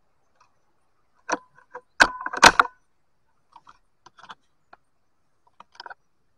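Short clicks and knocks: two loud sharp ones close together about two seconds in, then scattered fainter ticks.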